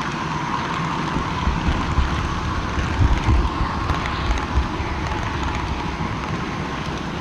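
Model train running along the track, heard from a camera carried on board: a steady rushing rumble, with a few low knocks in the first half.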